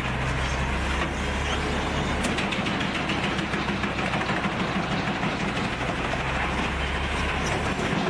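Large industrial wood chipper running: a steady heavy diesel-engine drone under a dense noise of wood being chipped.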